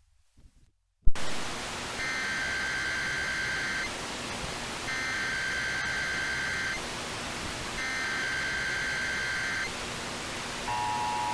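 Emergency Alert System test broadcast: a loud pop about a second in, then steady hiss with three bursts of the SAME header's digital data tones, each about two seconds long. Near the end the steady two-tone EAS attention signal begins, the warble that precedes the test message.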